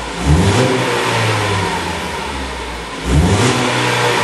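2012 Ford Focus SEL's 2.0-litre four-cylinder engine revved twice, each rev climbing quickly in pitch and then settling back to a steady run.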